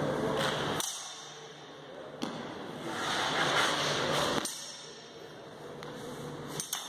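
Steel training longswords (feders) striking each other in a bout: several sharp clicks and knocks at irregular intervals, a quick double one near the end, with the reverberant noise of a sports hall.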